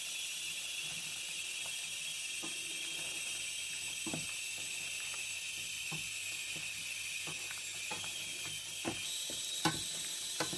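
Wooden spoon stirring a thick simmering tomato and eggplant sauce in a stainless steel pan: a steady high hiss from the hot pan, with scattered soft scrapes and knocks of the spoon against the pan.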